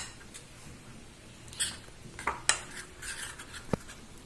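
A spoon stirring a thick date, banana, almond and oat paste in a ceramic bowl, with a few sharp clinks where it knocks against the bowl's side.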